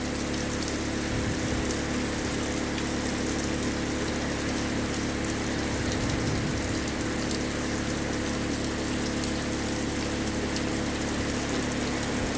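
Steady rushing of rain and runoff water flowing down a drainage trench, with a steady low engine-generator hum underneath.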